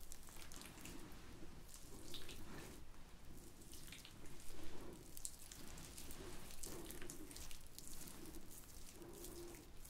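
Oily hands rubbing and sliding together close to the microphone: soft, wet sliding sounds with irregular small clicks.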